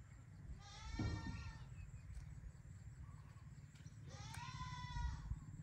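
Two drawn-out animal cries, one about a second in and one about four seconds in, each lasting well under a second, over a steady low rumble.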